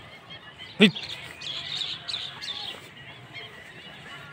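Small birds chirping continually, with one short, loud pitched call about a second in.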